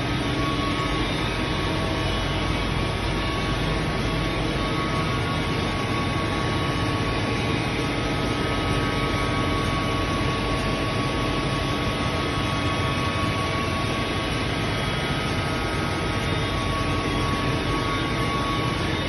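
A 2008 COMEXI FI 3010 CNC ten-colour central-impression flexo printing press running in production: a steady, unbroken machine drone with a thin, steady whine on top.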